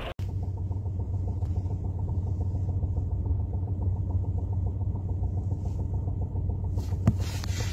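Car engine idling with the clutch pedal released: a steady low rumble with a fast knocking rattle from the gearbox, which a newly fitted clutch kit has not cured.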